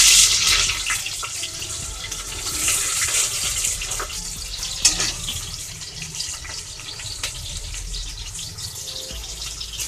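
Sliced onions and green chillies hitting hot oil in a pressure cooker: a loud sizzle at first that eases into a steady frying hiss. One sharp click about five seconds in.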